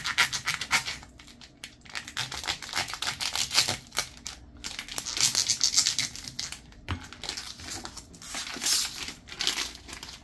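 A knife sawing through the sealed plastic wrapper of a block of cheese in a rapid run of scraping strokes, with a few short pauses. Near the end the plastic crinkles as it is pulled away from the cheese.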